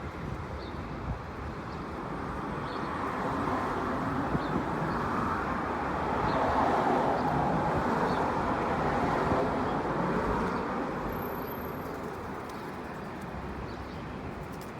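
Road traffic: a vehicle passing, its noise swelling over several seconds to a peak in the middle and then fading away, with faint high chirps every second or two.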